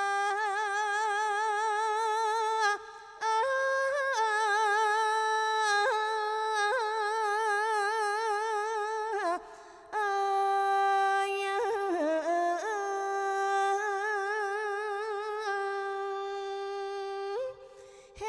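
A woman singing unaccompanied in long, drawn-out held notes with wide vibrato: the opening of a Thai khap sepha (sepha recitation) passage, sung live without backing. Three long phrases, with short breaks about three and nine seconds in.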